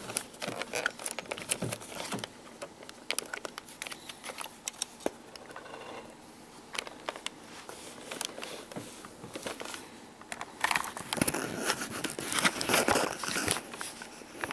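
Handling noise from a plastic camcorder body being worked in the hands: scattered small plastic clicks and knocks with fabric and strap rustling, growing louder for the last few seconds.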